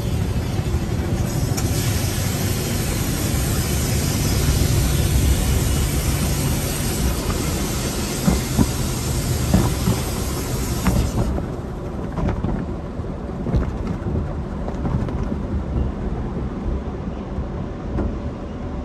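Automatic conveyor car wash tunnel equipment running: a steady low rumble, with a loud hiss from about 1.5 s in that cuts off suddenly near 11 s, then rumbling with a few scattered knocks.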